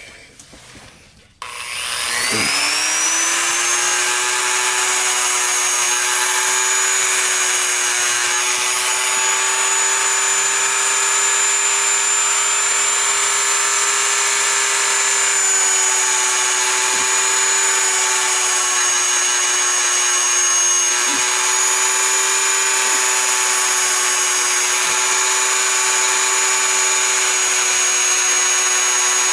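Handheld rotary tool starting up about a second and a half in, its pitch rising as it spins up, then running at a steady high whine as its bit shapes a foam blade.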